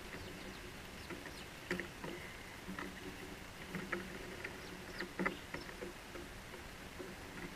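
House sparrows chirping in short, scattered notes, mixed with light taps and scratches of a bird pecking and shuffling on the wooden post right by the microphone.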